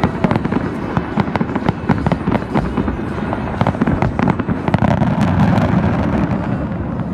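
Fireworks display: aerial shells bursting and crackling in quick succession, several sharp bangs a second over a steady low din.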